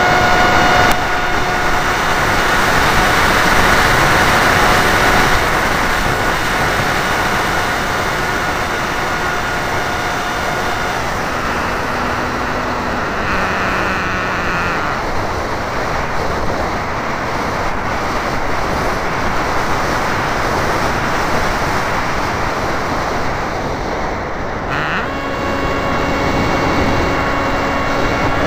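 Wild Hawk radio-controlled model airplane in flight, heard through its onboard camera: steady rushing airflow over the microphone with the motor's whine. The whine drops away about ten seconds in and comes back at a lower pitch near the end.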